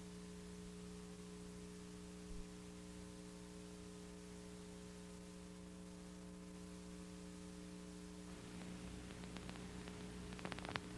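Steady electrical mains hum with a faint hiss on an old videotape's audio track. Near the end the hiss grows a little and a few faint clicks come in.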